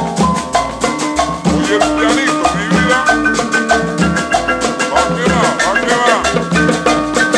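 Cumbia music played loud: a fast, even percussion rhythm over a pulsing bass line and keyboard melody, with a few swooping electronic glides about five seconds in.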